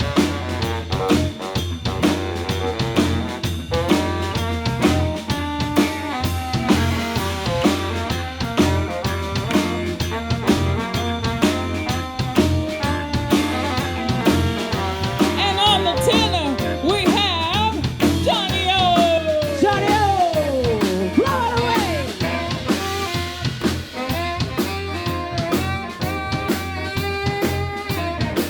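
Live funk band playing an instrumental passage: drum kit and electric bass holding a steady groove, with a lead line of sliding, bending notes from about halfway through.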